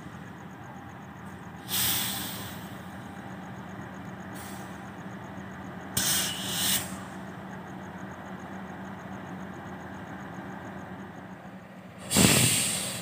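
CC 206 diesel-electric locomotive pulling a train slowly into a station, its engine a steady low hum, broken three times by loud hisses of air, the loudest near the end. The hisses are the train's air brakes working as it slows to stop.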